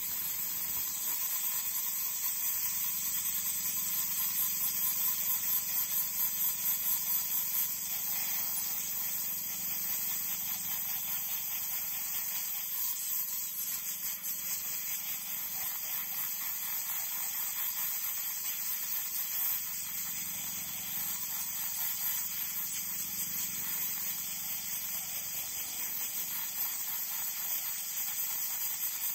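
Compressed air hissing steadily from a small nozzle held against an iPhone X's earpiece grille, blowing out moisture from around the proximity sensor.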